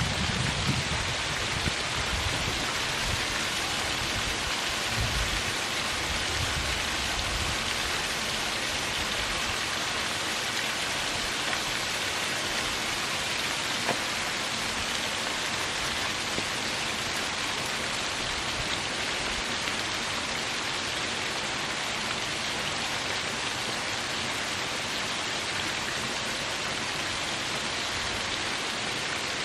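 Small waterfall: a steady, even rush of water splashing over rocks, with some low rumbling in the first several seconds.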